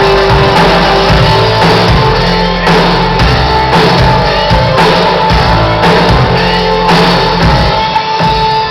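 Loud live pop band music with a steady drum beat, sustained keyboard-like tones and singing. Near the end the drums stop and a single held tone rings on.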